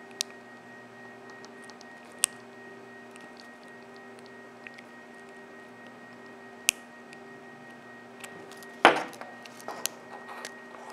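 Sharp, scattered clicks of a small metal spring bar tool working at a watch lug to release the spring bar, then a louder short scrape about nine seconds in as the resin watch band comes free of the case.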